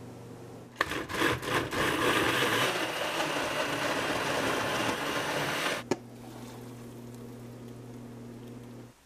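Countertop blender starting up about a second in, whole small tomatoes knocking against the blades at first, then running steadily as it purées them. It switches off with a click about six seconds in, leaving a faint low hum.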